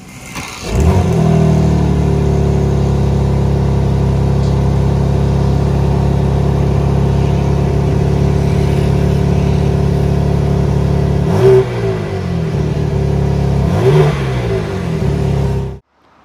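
BMW M4 Competition's S58 twin-turbo inline-six starting up through its quad exhausts, the engine flaring up about a second in and then settling into a steady idle. Near the end it is blipped twice, each a quick rise and fall in pitch.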